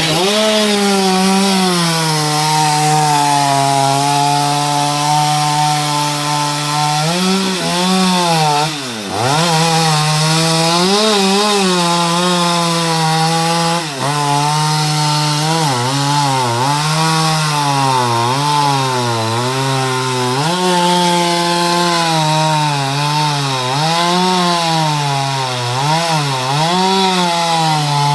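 Stihl MS 230 two-stroke chainsaw running at full throttle. It holds a steady high note for the first several seconds, then its pitch repeatedly sags and recovers as the chain bogs under load cutting coconut palm wood.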